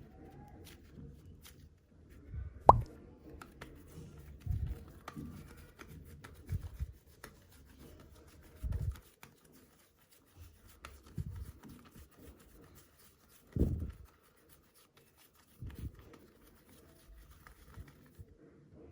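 Soft super clay being pressed and kneaded by hand: irregular soft, wet plops and squishes a second or two apart, with one sharper click a few seconds in.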